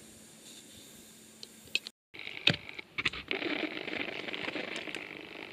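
Air hissing steadily out of a mountain bike tyre's valve as the floor pump head comes off, with a few sharp clicks from the pump head and valve just before the hiss starts.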